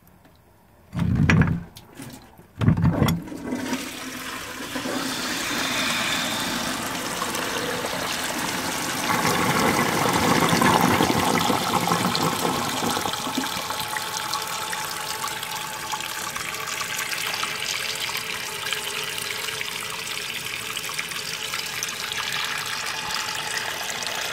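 Victorian Shanks "Reliable" cast-iron cistern being flushed by its weight-block mechanism. Two heavy clanks come in the first three seconds, then water rushes through and keeps running steadily, loudest about ten seconds in. The flush is sluggish, which the owner puts down to the short temporary flush pipe.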